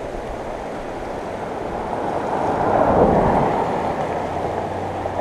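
Steady rushing of a flooded river's fast, high water, swelling louder about three seconds in and then easing off.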